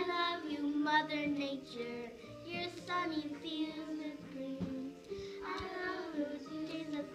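Young girls singing a pop song along with a backing track, the voices carrying the melody over steady held notes in the accompaniment.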